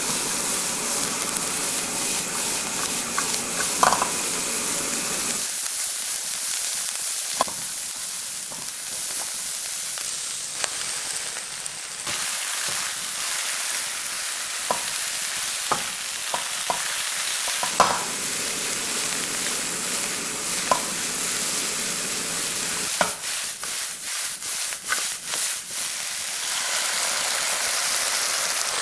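Choy sum, chopped garlic and dried shrimp sizzling as they are stir-fried in a nonstick pan. A spatula taps and scrapes against the pan now and then, and the stirring gets busier for a few seconds late on.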